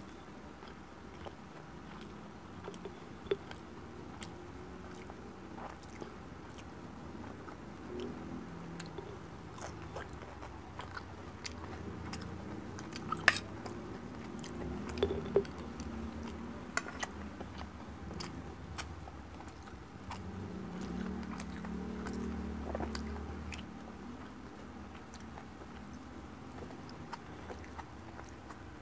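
Close-miked chewing and mouth sounds of a person eating rice and fried bangus (milkfish), with scattered sharp clicks of a metal spoon against the plate, the loudest about halfway through.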